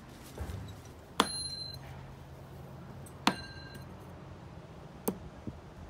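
Three throwing knives striking a dartboard one at a time, about two seconds apart. The first two hits leave a short metallic ring from the steel blade, and the third is a shorter, duller hit.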